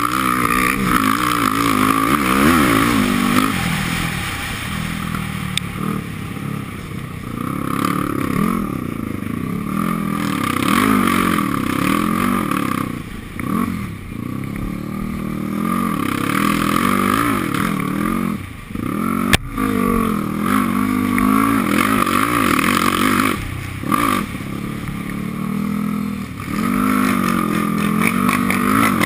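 Off-road vehicle engine revving up and falling back over and over as it is ridden along a dirt trail, heard from the rider's helmet. There is one sharp click about two-thirds of the way through.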